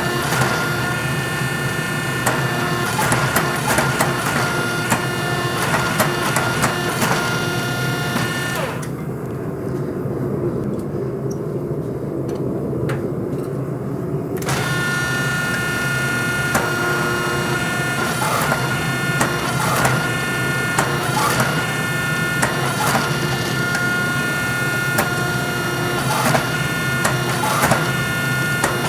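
Forging press running while hot coil-spring steel is pressed: a steady mechanical hum with several high tones and repeated sharp clanks. The high whine drops away for several seconds about a third of the way in, then returns.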